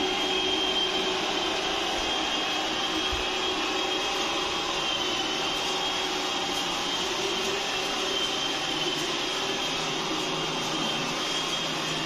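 iRobot Roomba i6 robot vacuum running its cleaning cycle: a steady motor hiss with a high, even whine over it.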